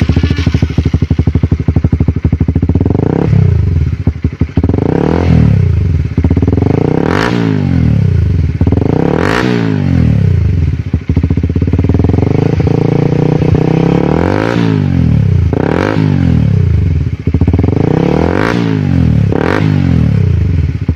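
Single-cylinder Honda CBR150R engine breathing through a Race-Pro GP long carbon slip-on silencer, idling and being blipped about eight times, each rev rising and falling back to idle. The revs are kept short of the top.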